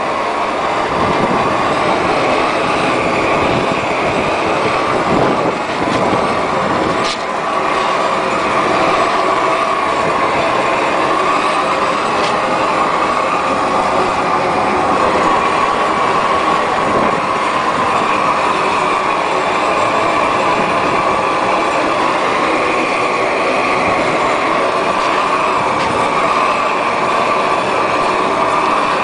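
Propane roofing torch burning steadily with a continuous rushing noise as it heats the bitumen torch-down membrane to melt it onto the roof.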